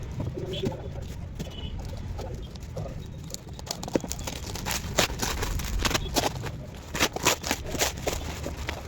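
Packaging being handled and opened: scattered rustling and sharp little clicks and taps, growing busier about halfway through, over a low steady hum.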